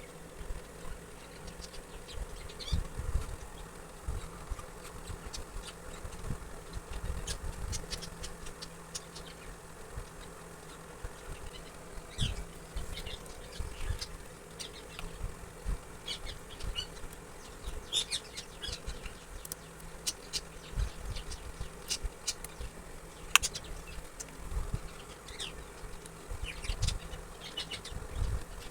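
A small electric motor humming steadily, with irregular clicks and low knocks over it.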